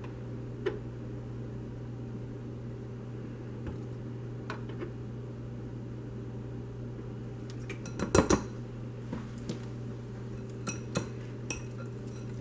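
A metal measuring spoon and a wire whisk clinking against a ceramic mixing bowl while milk is added to a powdered-sugar glaze, over a steady low hum. Scattered single clicks lead up to a louder cluster about eight seconds in, and a quick run of whisk taps comes near the end.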